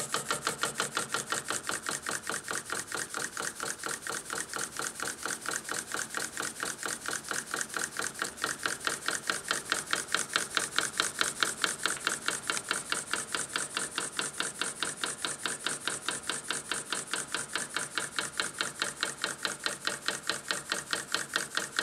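Small homemade brass-and-steel oscillating-cylinder steam engine running on compressed air at about 5 psi, ticking over at a steady speed. Each stroke gives a short puff of air from the exhaust port with a light metallic click, in a rapid, even beat that stops at the very end.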